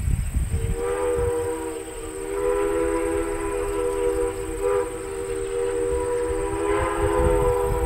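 Train whistle blowing one long, steady chord of several tones, starting about half a second in, over low wind rumble on the microphone.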